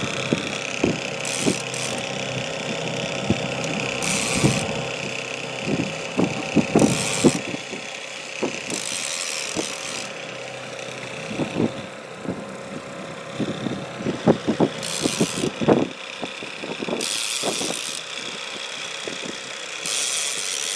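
Boat engine running steadily at trolling speed, with scattered short clicks and knocks and several brief splashy bursts as a hooked walleye flops at the surface.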